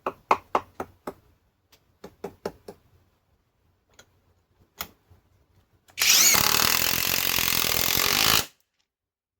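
A series of sharp clicks, then a Greenworks Pro mid-torque cordless impact wrench (IW 5800) running for about two and a half seconds, about six seconds in, driving a small fastener, and stopping abruptly.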